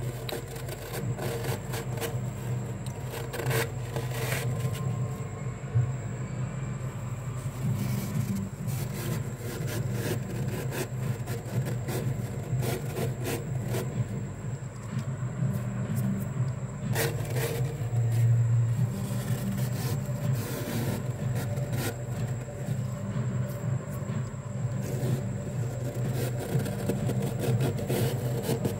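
Bare hand scraping and scooping flaky frost off a freezer wall: continuous gritty crunching and rubbing with frequent sharp crackles, over a steady low hum.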